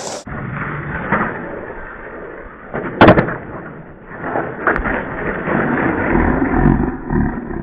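Skateboard wheels rolling on stone paving slabs, with a loud sharp clack about three seconds in as the board hits the ground from a trick. The landing fails: further knocks, then scraping and rumbling as the board skids away and the skater falls onto the paving.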